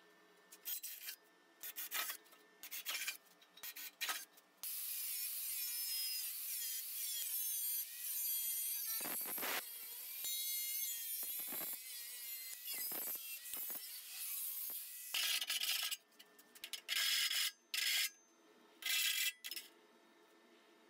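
Angle grinder with a thin cut-off disc cutting into stainless steel sheet to open a rectangular window hole. There are a few short bursts, then one long continuous cut of about ten seconds with a wavering high pitch, then several more short bursts near the end.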